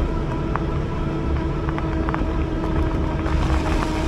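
A motor running at an unchanging pitch on a moving bike, with low wind rumble on the microphone and a few faint ticks.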